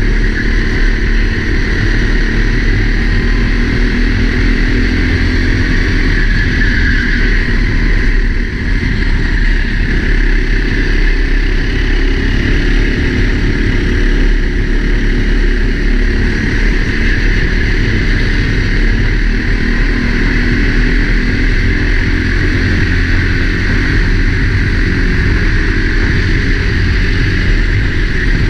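Four-stroke racing kart engine running hard at race pace, its note rising and falling as the driver accelerates and lifts, heard from the helmet camera with rushing air on the microphone.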